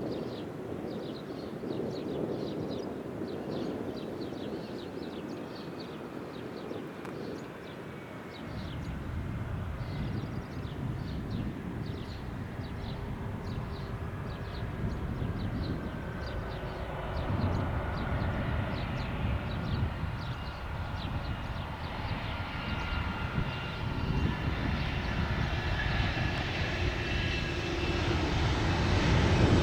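Cessna Citation Latitude business jet on landing approach, its twin turbofans whining and growing steadily louder as it comes closer, the whine drifting slightly lower in pitch.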